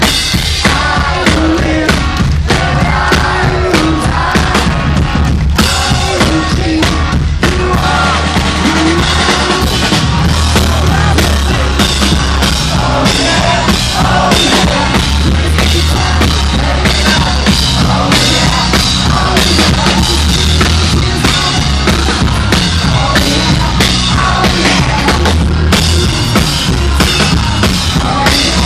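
Rock band playing live and loud, a full drum kit with a heavy bass drum driving the song. A voice sings over the first few seconds.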